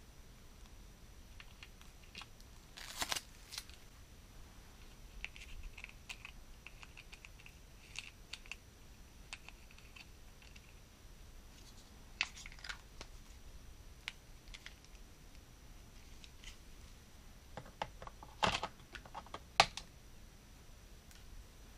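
Hard plastic toy parts clicking and tapping as a small plastic toy tool box is handled and set into a plastic toy jeep: scattered sharp clicks, the loudest two near the end.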